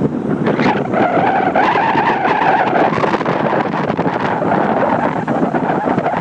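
Longboard wheels rolling fast on asphalt, with wind on the microphone. Under a second in, urethane wheels begin squealing in a slide; the squeal lasts about two seconds and then fades.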